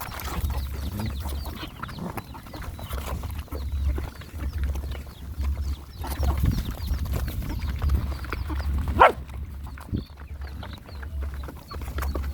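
Dogs and puppies eating, with many small chewing, crunching and slurping clicks. One short, loud sound stands out about nine seconds in.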